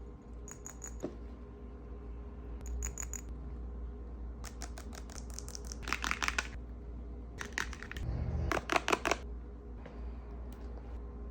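A skincare kit's box and packaging being opened and handled: short bursts of clicks, taps and crinkles, several times over, busiest about halfway through.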